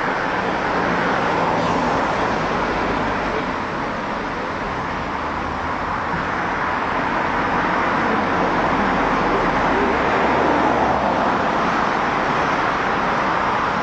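Road traffic: cars driving along the street toward and past the microphone, a steady noise of tyres and engines that swells as each car comes close.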